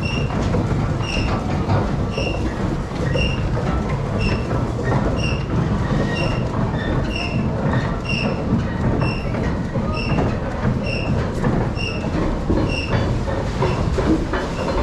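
Water-powered corn mill machinery running: a steady low rumble of turning gearing, with a high squeak repeating about once a second.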